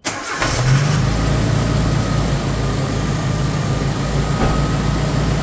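1992 Suzuki Jimny's engine running steadily at idle, with the freshly replaced power steering pump and new fluid in the system.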